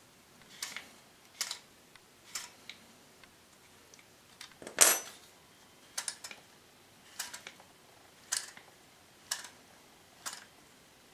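Short, sharp clicks about once a second, the loudest just under five seconds in, as the threaded cylinder of an airsoft Striker sniper rifle is unscrewed by hand with its M150 spring compressed inside.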